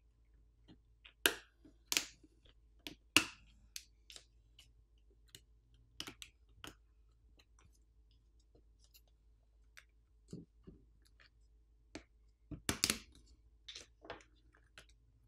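Sharp plastic clicks and snaps as a pry pick and fingers unclip a phone's plastic motherboard cover from its frame. Three loud clicks come in the first few seconds, scattered small ticks follow, and a cluster of clicks comes near the end.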